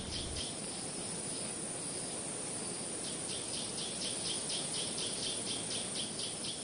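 Insect chirping in a steady rhythm, short high chirps about four a second, over a steady hiss of natural ambience. The chirping stops about half a second in and starts again about three seconds in.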